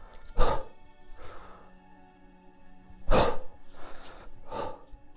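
Background music with steady sustained tones, broken by a few sharp, forceful breaths out from a man lifting a kettlebell through long cycle press reps.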